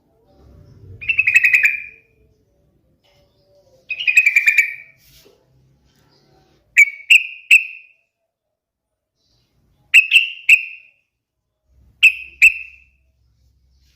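Yellow-vented bulbul (trucukan) singing: two bubbling, warbled phrases about a second long, then short bursts of two or three sharp, clear notes repeated every few seconds.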